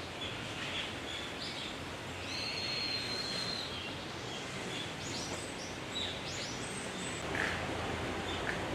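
Several wild birds calling over a steady background hiss: short high whistled notes, one longer held whistle about two seconds in, and quick upward-sweeping chirps past the middle.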